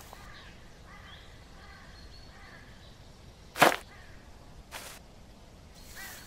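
A sharp whoosh sound effect about three and a half seconds in, and a softer one about a second later, over faint outdoor ambience with a few bird chirps.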